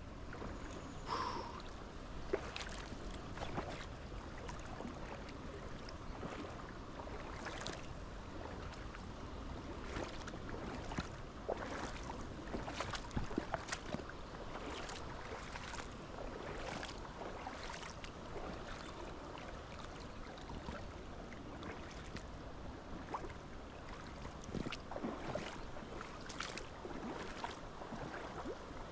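Running water of a trout stream, a steady rush broken by irregular small splashes.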